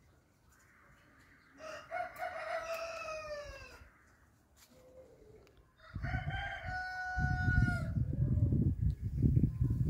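A rooster crowing twice, the second crow ending on a long held note. Over the second half an irregular low rumble comes in and grows to be the loudest sound near the end.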